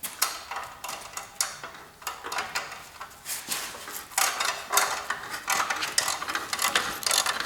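Ratcheting wrench clicking in runs of quick strokes as a nut is backed off a threaded rod, slowly letting down a compressed front coil spring. The clicking becomes louder and denser after about four seconds.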